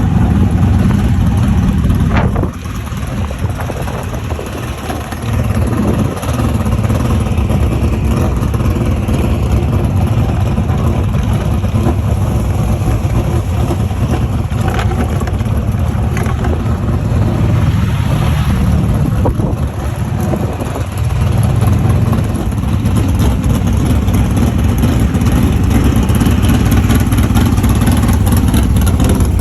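Dirt modified race car engines running loud, with a dense low rumble that eases off briefly a few seconds in and again about two-thirds of the way through.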